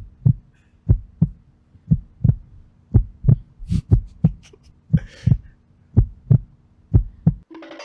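Heartbeat sound effect: paired low thumps, lub-dub, about once a second over a faint steady hum, stopping near the end.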